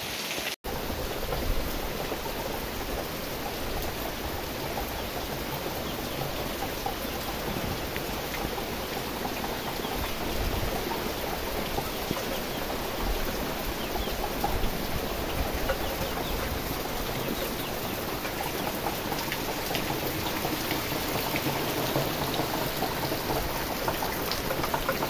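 Steady rain falling on trees, leaves and the ground, an even hiss, with a brief break less than a second in.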